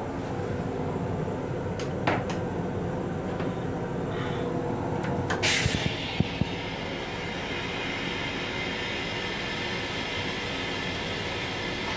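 M7 railcar toilet flushing: a sudden rush about five seconds in, then a steady hiss of water that cuts off near the end, with two low thumps just after it starts. Under it runs the steady rumble of the railcar, and a sharp click sounds about two seconds in.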